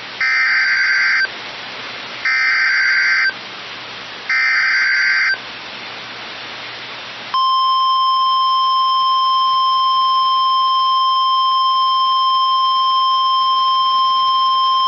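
Emergency Alert System tones: three one-second bursts of the SAME digital header, each a harsh warbling data screech, a second apart. About seven seconds in, the steady 1050 Hz NOAA Weather Radio warning alarm tone starts and holds. Together they signal the start of a new alert, here a tornado warning.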